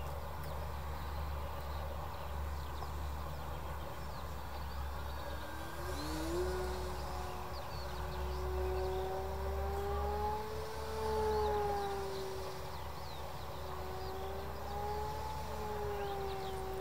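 RC model airplane's motor whining in the distance, its tone rising in about six seconds in and then wavering up and down in pitch as it flies, over a steady low rumble.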